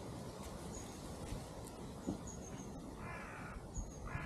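A crow cawing: one harsh call about three seconds in and another starting at the very end. Faint short high chirps of a small bird sound now and then.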